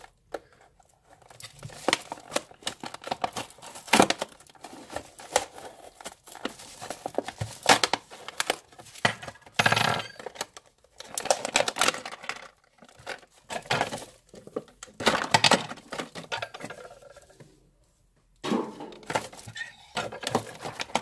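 Clear plastic blister packaging and cellophane wrap of an action figure being opened by hand: irregular crinkling and crackling with sharp plastic snaps, and a short lull near the end.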